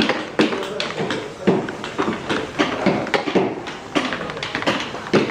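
Mallets tapping on wood-carving chisels in a workshop: sharp, irregular knocks several times a second, from more than one carver at once.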